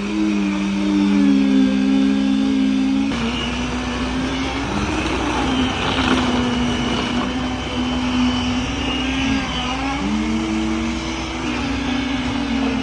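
Vehicle engines running steadily: two engine hums that glide up and down in pitch a few times as the engine speed changes.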